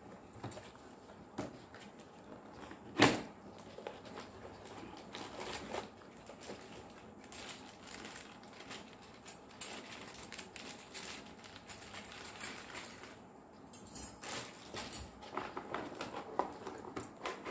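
Cardboard box and plastic wrapping handled while a hand mixer is unpacked: scattered rustling and light knocks, with a sharper knock about three seconds in and a busier patch of clicks and rustling near the end.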